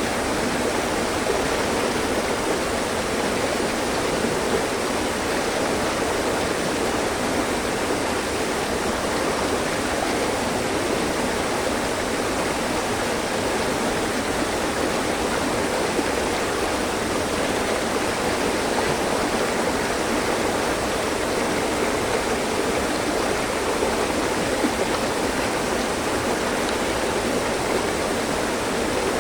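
Mountain stream running over rocks: a steady rush and babble of water.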